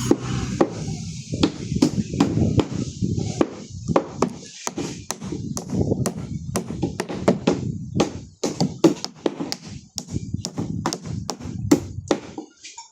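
Repeated sharp knocks and taps at an irregular pace, several a second, like hand-tool work on wood or other building material.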